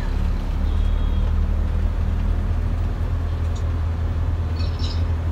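Steady low rumble of a moving vehicle's engine and tyres on the road, with faint street traffic around it.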